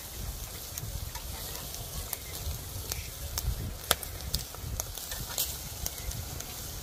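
Meat sizzling over charcoal on a disposable foil-tray grill while metal tongs turn the pieces, with scattered sharp clicks of the tongs against the wire rack. A low rumble runs underneath.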